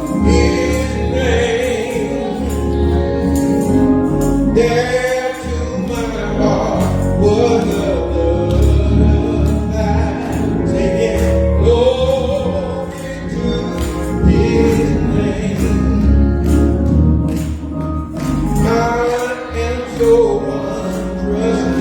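Gospel music: a choir or group singing over a band with a steady beat and strong bass.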